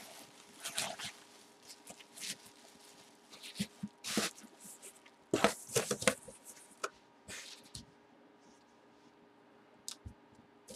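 Plastic bubble wrap rustling and crinkling in irregular bursts as it is handled, then cardboard box flaps being folded shut.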